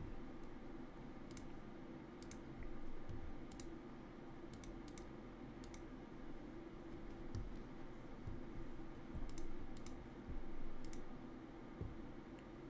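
Light, sharp clicks at a computer, about nine scattered irregularly, some in quick pairs, over a steady low hum.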